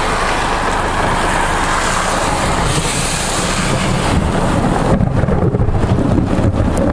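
Steady rush of wind and rain during a severe thunderstorm, with low rumbling thunder building from about four seconds in, following a nearby cloud-to-ground lightning strike.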